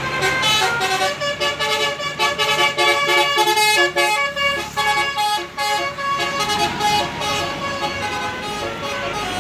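Tour bus's Basuri 'telolet' multi-tone air horn playing a quick melody of short, stepped notes. The notes stop about seven and a half seconds in, leaving road traffic noise.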